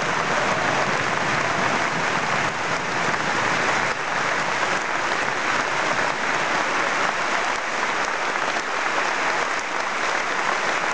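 Large opera-house audience applauding: dense, unbroken clapping at a steady level.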